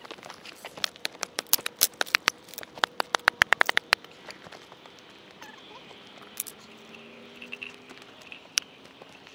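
Dry sticks and branches snapping, a quick string of sharp cracks that comes thickest about three to four seconds in, then only a few scattered snaps.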